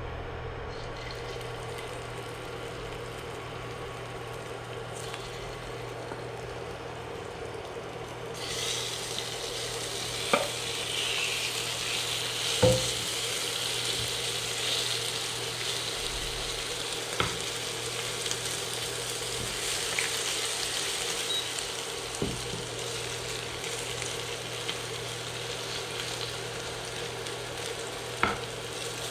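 Marinated prawns sizzling in hot coconut oil in a nonstick frying pan. The sizzle starts suddenly about a third of the way in and keeps going, over a low steady hum. A few sharp knocks of the spatula against the pan come as the prawns are moved about.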